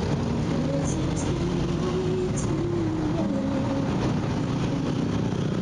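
Steady street traffic: vehicle engines running, with their pitch shifting up and down now and then.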